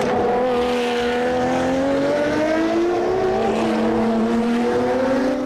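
Race car engine sound: one steady engine note that starts abruptly and holds for about five seconds, its pitch wavering only slightly.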